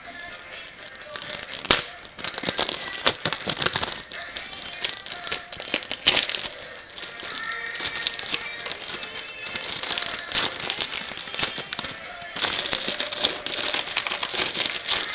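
Plastic shrink-wrap crinkling and crackling in irregular bursts as it is torn and peeled off a CD case, over background music.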